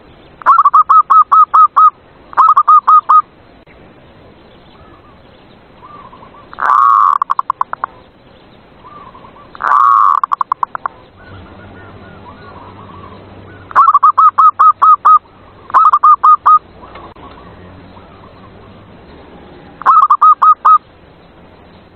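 Zebra dove (perkutut) cooing: seven bursts of rapid, evenly repeated coo notes. Two of the bursts open with a longer drawn note before the quick series.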